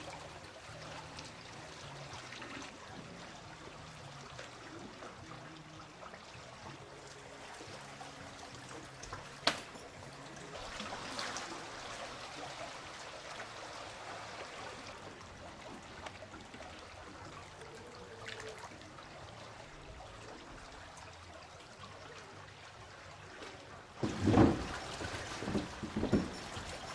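Water running and trickling steadily. There is a sharp click about nine and a half seconds in and a few loud thumps near the end.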